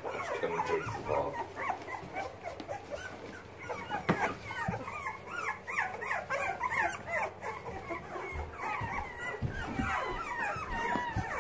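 A litter of young Boxer puppies whimpering and squeaking, many short high calls overlapping, with a couple of light knocks about four seconds in.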